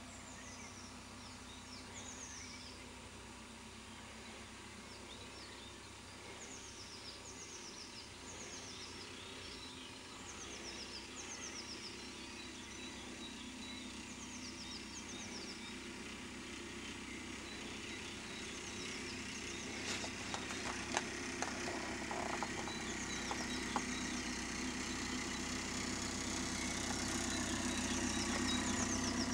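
A car engine grows louder as the car drives up across a grass field. A bird repeats short, falling whistles over it. A few sharp clicks come about two-thirds of the way through.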